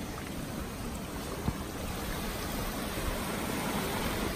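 Mountain stream of snowmelt rushing over rocks in a steady wash, slowly growing a little louder, with a single knock about a second and a half in.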